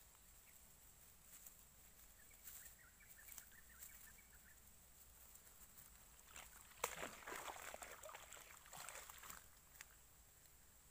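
Quiet outdoor ambience with faint, brief bird twittering a couple of seconds in, then a click and a few seconds of light water sloshing as hands work at the water's edge.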